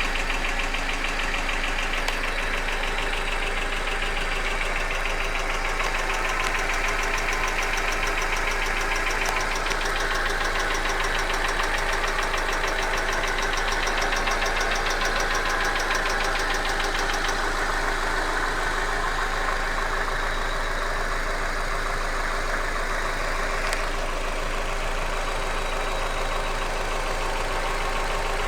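Hyundai Accent engine running steadily with a fast, regular knock coming from inside the engine.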